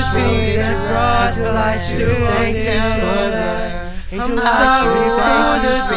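Music made of layered, wordless sung voices in harmony, held and gliding, over a low steady bass note that fades out about halfway through.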